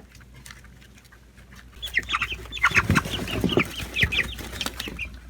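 A flock of three-week-old chicks peeping, faint at first, then from about two seconds in a loud crowd of rapid high peeps mixed with knocks and scuffling.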